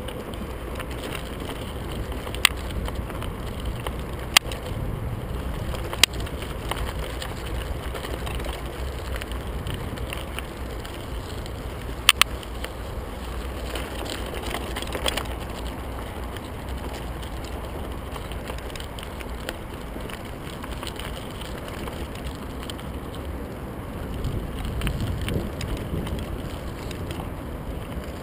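Merida TFS 800D mountain bike ridden over a rough gravel dirt track, heard from its handlebar mount: a steady crunch and rumble of the tyres over stones, with a few sharp clacks from the bike jolting over bumps, the last one doubled.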